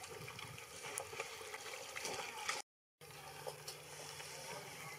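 Low outdoor ambience on open water: an even hiss with scattered small clicks. It cuts out completely for a moment about two and a half seconds in, and a low steady hum runs under the hiss after that.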